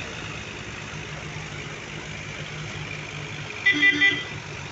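Diesel tractor engine running with a steady low pulsing while hauling two heavily loaded sugarcane trailers. Near the end comes a brief, loud, high-pitched blast in three quick pulses.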